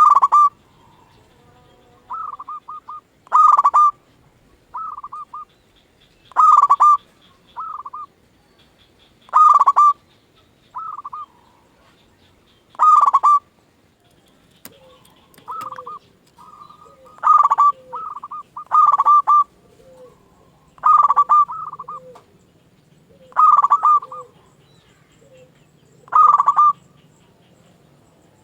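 Zebra doves (perkutut) cooing: loud, short cooing phrases come about every three seconds, with fainter coos between them, as of other doves answering.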